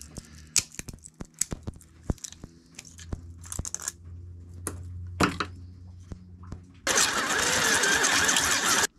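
Small clicks and taps of plastic parts and a hand tool being handled on a workbench. Then, about seven seconds in, a cordless drill runs steadily for about two seconds, the loudest sound here, and stops suddenly.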